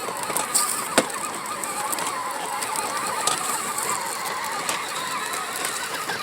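A 12-volt Power Wheels Jeep Hurricane's electric drive motors and plastic gearboxes whining as it drives over grass, the pitch wavering, with a few knocks, the sharpest about a second in.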